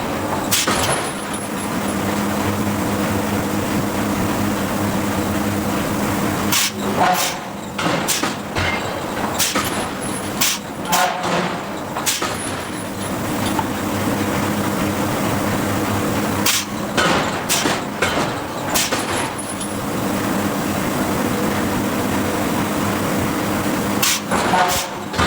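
A hydraulic forging hammer working steel: a steady machine hum runs under sharp, irregular strikes that come a few seconds apart, about a dozen in all.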